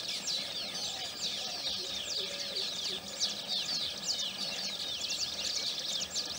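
A dense chorus of baya weavers chattering: many quick, high, overlapping down-sweeping chirps with no break, and a few lower calls from another bird underneath about two seconds in.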